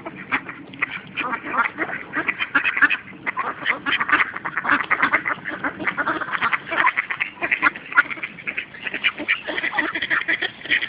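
A flock of mallards quacking, many short calls overlapping rapidly with no break.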